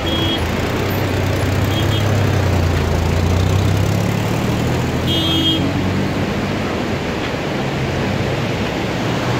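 Road traffic: a car engine running close by, its low hum louder for a few seconds about two seconds in, over a steady rushing noise. A few short high-pitched tones cut through, the clearest about five seconds in.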